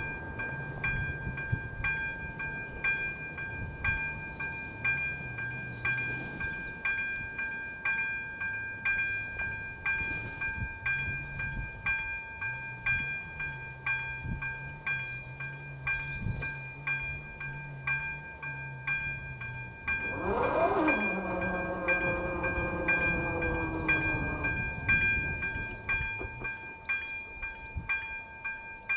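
ZV-02 electronic level-crossing bell beginning to ring as the crossing activates, a steady repeated ding of about one and a half strikes a second that warns of an approaching train. About twenty seconds in, a whine falls steeply in pitch and fades over about four seconds as the barrier arms come down.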